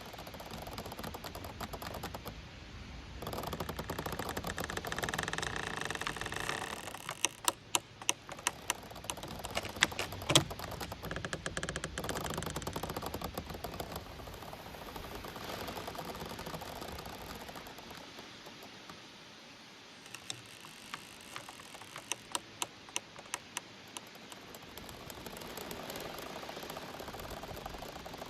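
Giant bamboo stems swaying in the wind, over a rustling hiss: a drawn-out creak in the first few seconds, then two spells of quick clicking and knocking as the stems rub and tap against each other, the sharpest knock about ten seconds in.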